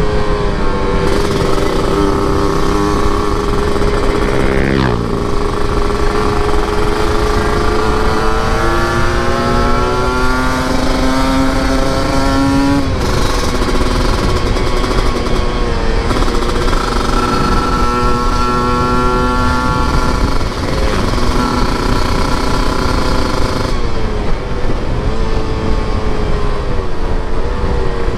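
Two-stroke single-cylinder engine of a Yamaha RX-King 135 motorcycle running under way, heard from the rider's seat. The revs climb in long rising pulls and drop sharply at each gear change, several times, over a heavy rush of wind.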